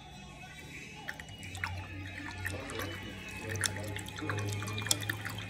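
Water dripping and plinking, with many small ticks and clicks scattered throughout and a low steady hum underneath from about a second in.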